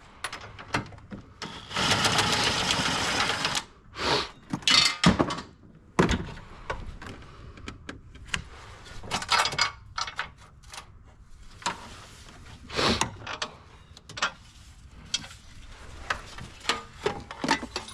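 Hand tools knocking and clicking against metal parts while working in an engine bay, with a steady hiss lasting nearly two seconds about two seconds in.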